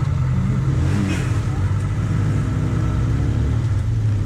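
Sport motorcycle's engine running at low revs as the bike rolls slowly forward, a steady low hum.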